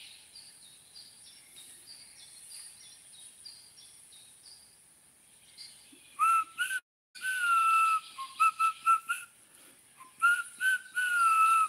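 A person whistling a tune, beginning about six seconds in: short clear notes and a few long held ones, cut briefly by a dropout in the sound shortly after it starts. Before that, only faint high chirps repeating a few times a second.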